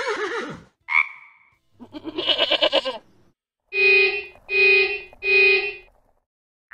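Farm-animal sound effects: a short call and a brief croak, then a wavering goat's bleat. A horn follows, beeping three times: each beep is a steady tone about half a second long, evenly spaced.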